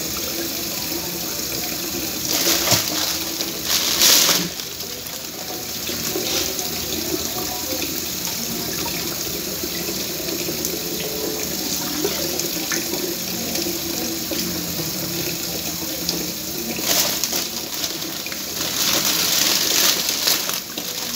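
Kitchen tap running into a metal sink bowl as bunches of red grapes are rinsed under it: a steady rush of water, louder for a moment a few seconds in and again near the end.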